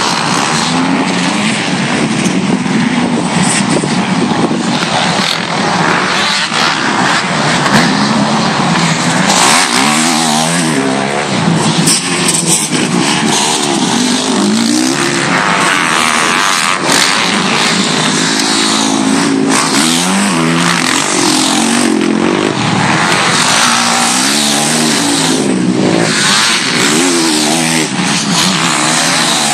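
Several motocross bikes racing round a dirt track, their engines revving up and dropping back again and again, overlapping one another as they pass.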